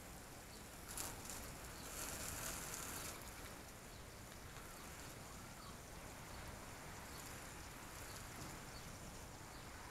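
Faint outdoor background noise, with a brief click about a second in and a short hiss about two seconds in.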